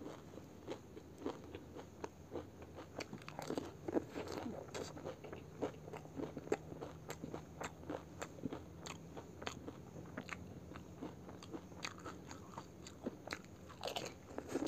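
A person chewing pani puri with the mouth full: the crisp fried puri shells crunch and crackle in many small, quick bites and chews.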